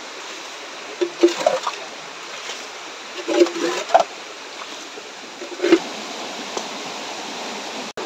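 A rocky stream running steadily, with a few brief splashes about a second in, around three to four seconds in and near six seconds as hands work in a shallow muddy pool.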